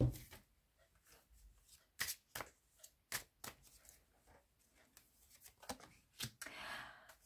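Tarot cards being handled: scattered sharp clicks and taps, then a short rustling swish near the end.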